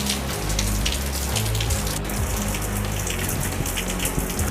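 Tropical storm rain falling steadily, a dense hiss of drops, at the early onset of the storm. A low background music track plays underneath.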